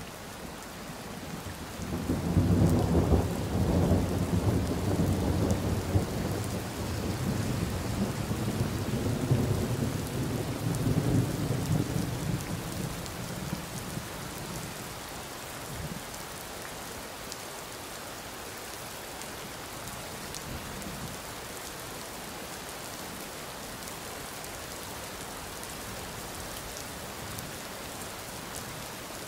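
Steady rain with a long rolling rumble of thunder. The thunder starts about two seconds in, is loudest over the next ten seconds and fades out by about fifteen seconds, leaving the rain alone.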